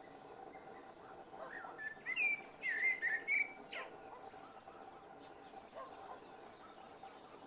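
Eurasian blackbird singing one phrase of its slow evening song about a second in: a few low fluty warbles that run into a high, squeaky twitter, lasting some two and a half seconds. A faint steady whine of mosquitoes lies underneath.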